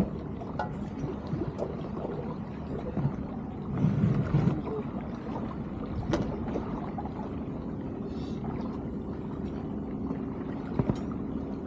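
A boat's motor running steadily with a low hum, with scattered knocks and clicks and a brief louder rumble about four seconds in.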